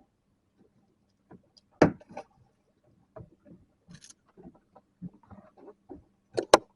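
Scattered knocks and clicks aboard a small fishing boat, with one loud knock about two seconds in and two sharp clicks near the end, over a faint steady hum.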